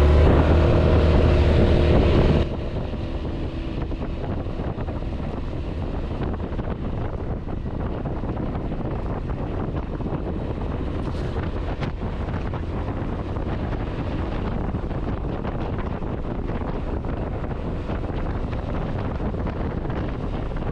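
Background music for about the first two seconds, which cuts off suddenly. After it comes steady wind noise buffeting the microphone of a camera on a moving motorcycle.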